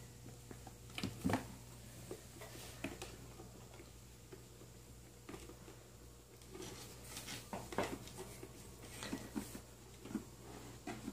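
Light, irregular taps and scratches from 4.5-week-old Balinese kittens' paws and claws on a cardboard box while they play, with a couple of louder knocks about a second in and a busier run of taps in the second half.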